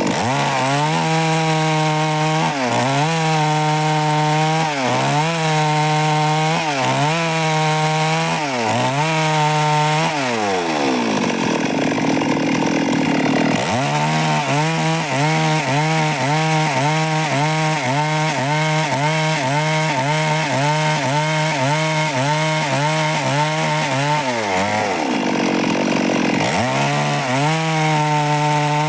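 Stihl MS 382 two-stroke chainsaw running at full throttle while cutting wood, its pitch dipping again and again as the chain loads in the cut. Twice, about ten seconds in and again near twenty-five seconds, the throttle is let off so the revs fall away, then the saw is revved back up.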